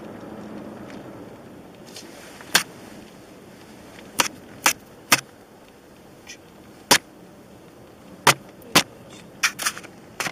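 Kia Optima's front dashboard panel creaking in short, sharp clicks, about ten of them at irregular intervals, over a low steady rumble.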